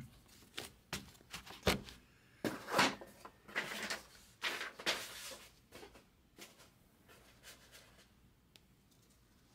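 Trading cards being handled on a table: a run of light knocks, clicks and short swishing rustles over the first six seconds, then only faint ticks.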